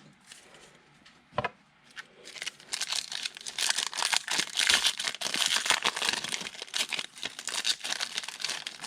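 Wrapper of a football trading-card pack being torn open and crinkled: a single click about a second and a half in, then continuous crackling rustle from about two seconds in.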